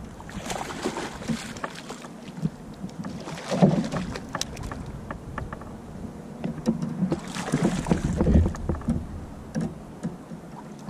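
A hooked largemouth bass thrashing and splashing at the surface as it is reeled in beside a kayak, in three bouts of splashing about half a second, three and a half and seven seconds in, with scattered small clicks and knocks.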